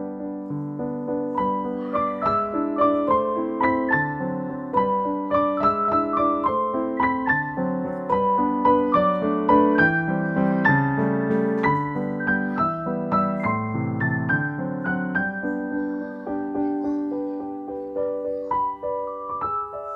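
Background piano music: a gentle melody of many quick single notes over held chords, steady throughout.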